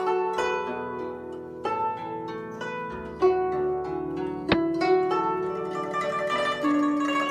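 Background music of a plucked zither-like string instrument playing a run of ringing notes, with one sharp click about four and a half seconds in.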